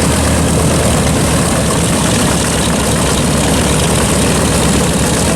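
WWII bomber's radial piston engines idling on the ground, a loud, steady, low rumble.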